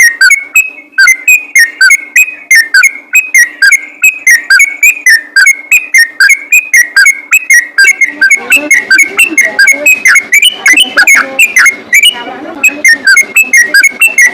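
Yellow-vented bulbul (trucukan) singing a fast, unbroken run of short whistled notes, about four or five a second. Past the middle a busier chattering layer joins beneath the whistles.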